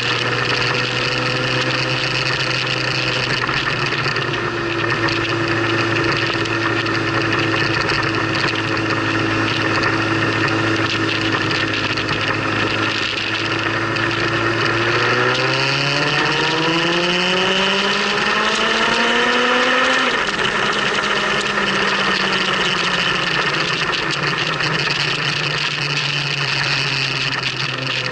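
Motorcycle engine running at a steady cruise under a rush of wind noise. Past the middle it rises in pitch for about five seconds as the bike accelerates, then drops suddenly on an upshift.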